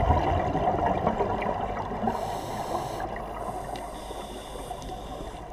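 Underwater sound muffled by a camera housing: a scuba diver's regulator breathing, with exhaled bubbles gurgling, louder in the first second or so.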